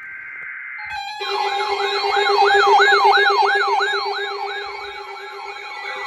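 Electronic alert siren of a weather alert: a steady tone for about a second, then a warbling wail that sweeps up and down about three times a second over a steady lower drone.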